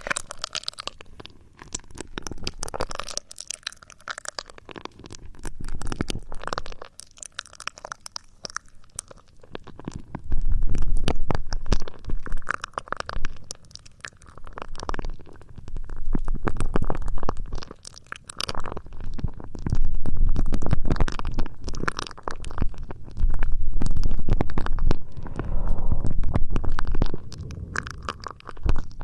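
Close-miked ASMR trigger sounds: crinkly scratching with sharp clicks at first, then, from about ten seconds in, repeated bouts of loud, low rubbing right against the microphone, each a few seconds long.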